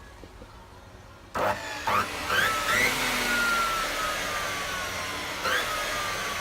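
305 mm aluminium cutting saw starting suddenly and loudly about a second in, then running with a hiss and a high whine whose pitch slowly falls, with a few short squeals.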